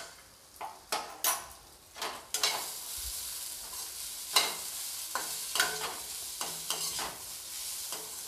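Vegetables stir-frying on a high flame in a kadai: a steel spatula scrapes and knocks against the pan in irregular strokes while the oil sizzles, the sizzle growing louder and steadier about two and a half seconds in.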